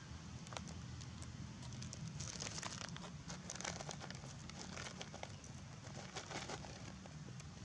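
Quick crackling, crinkling clicks, thickest in the middle, as a long-tailed macaque handles and chews a piece of food.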